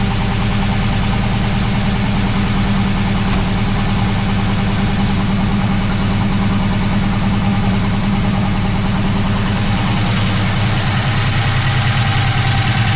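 Engine with freshly refitted link-bar lifters, longer pushrods and a shim idling steadily on a cold start, run to check whether its lifter tick is gone. Near the end the engine note drops lower and its beat grows more marked.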